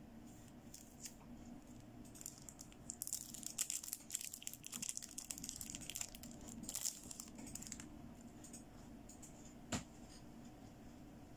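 Crinkly plastic rustling and small ticks as a toy makeup brush with a glitter-filled plastic handle is picked up and handled, busiest in the middle, then one sharp click near the end.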